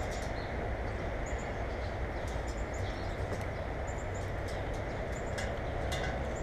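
Small birds giving short high chirps, about four times, over a steady low rumble of background noise, with a few faint clicks.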